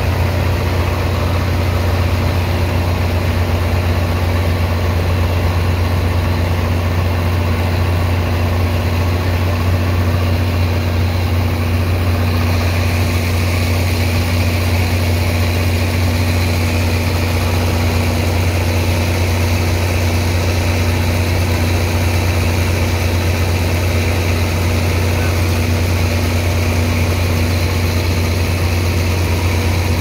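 The engine of a sand-unloading dredge pump running steadily with a low, constant hum, under the hiss and gush of water jets washing sand and slurry pouring off the barge.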